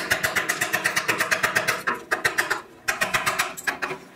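Chisel pushed by hand along a dado in a softwood board, clearing the waste between the saw kerfs: a rapid run of ticks, about ten a second, as the edge chatters through the wood fibres. It breaks off briefly twice, near two seconds in and again a little before three seconds.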